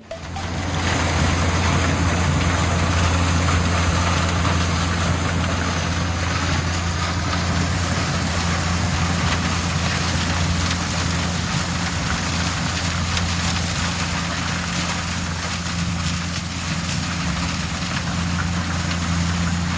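Corn harvester's engine and machinery running steadily at a constant pitch: a loud low hum with a wide hiss over it.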